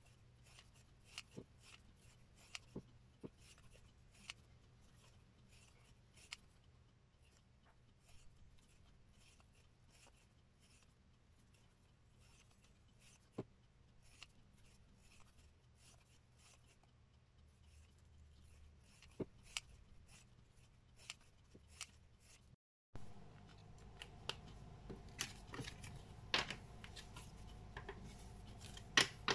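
Scissors snipping paper stickers: a quiet run of small, irregular snips and clicks. About three-quarters of the way through the sound cuts out briefly and gives way to a louder steady hum with a few taps.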